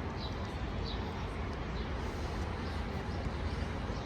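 Steady outdoor background noise with a low rumble, with a few faint short high chirps in the first two seconds.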